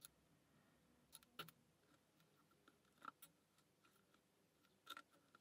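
Faint, sparse clicks of a lock pick working the pin stacks of a pin-tumbler challenge lock, coming in small pairs about a second in, about three seconds in and near the end, as pins and spools shift under the pick and tension.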